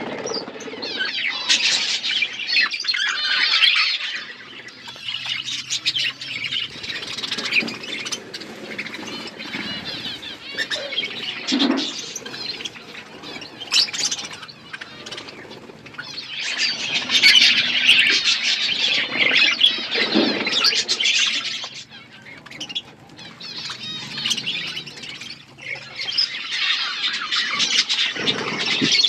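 A flock of budgerigars chattering and warbling, swelling into louder spells of chatter three times, with scattered sharp clicks between.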